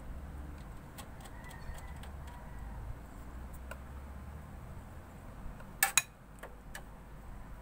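Small clicks and taps of hands handling computer case parts and cables, with two loud sharp clicks close together about six seconds in, over a low steady hum.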